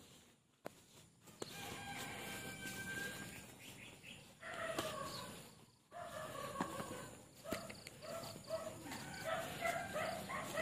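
A rooster crowing, starting about a second and a half in, followed by a run of short, repeated clucking calls from chickens.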